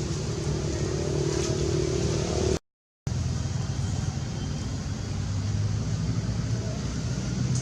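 Steady low motor hum, like a vehicle engine running, broken by a sudden dropout to silence for about half a second between two and three seconds in.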